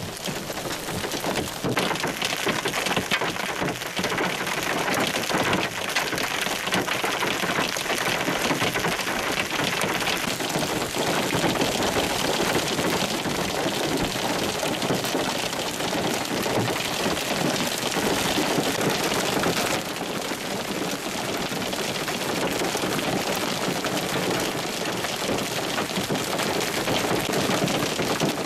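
Hailstones and heavy rain pelting the ground in a dense, continuous clatter of countless small impacts, growing louder about two seconds in.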